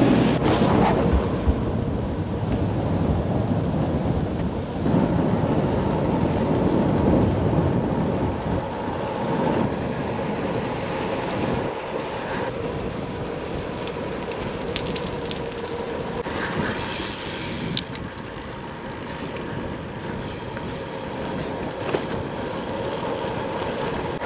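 Wind buffeting the microphone of a moving bicycle, a steady gusting rush that eases off slowly.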